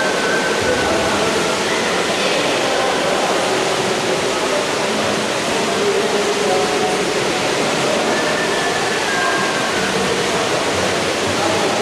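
Steady, loud, echoing din of an indoor swimming pool during a water polo game: splashing water blended with indistinct shouting voices.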